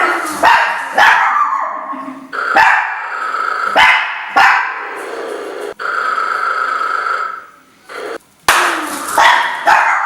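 Chihuahua barking in repeated sharp yaps, about nine in all, with longer drawn-out sounds between some of them and a brief lull shortly before the end.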